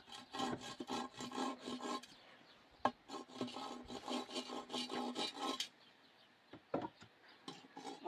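Rapid back-and-forth rasping strokes of a hand tool on a wooden board, about five a second, in two runs with a short break about two seconds in. The strokes stop a little past halfway, followed by a couple of light knocks of wood.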